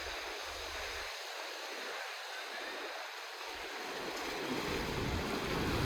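Sea surf washing steadily, with wind gusting on the microphone as a low rumble that comes and goes.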